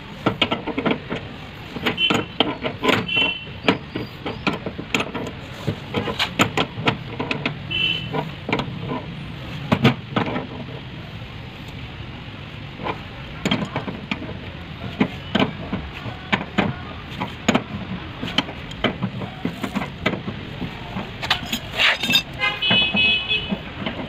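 An adjustable steel wrench clinks and knocks against the brass flare nuts and service valves as the refrigerant pipe joints are tightened, giving many short, sharp metallic clicks over a steady low background hum.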